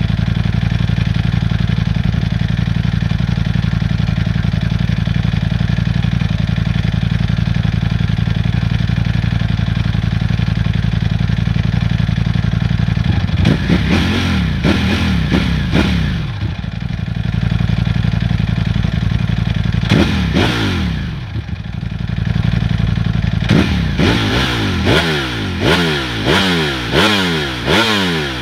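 Ducati Panigale V4 S's 1103 cc V4 engine idling steadily through its exhaust, then blipped in quick revs about halfway through, revved once more a few seconds later, and given a fast run of about eight throttle blips near the end.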